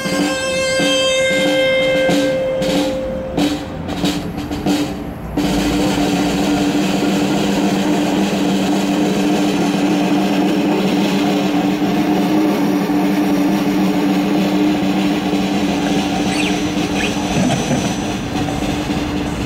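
Live instrumental music: a plucked string instrument with held notes, which about five seconds in settles into a steady, sustained low drone.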